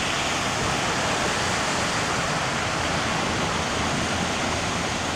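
Steady rush of floodwater pouring across and washing out a beach.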